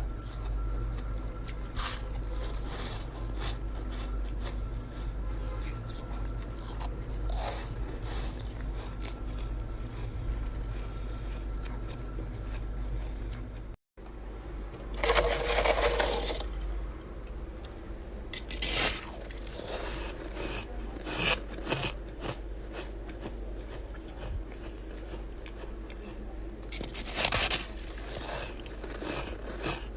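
Chest freezer frost ice being bitten and chewed: a run of crisp crunches and scrapes, with a few louder bursts of crunching, over a steady low hum.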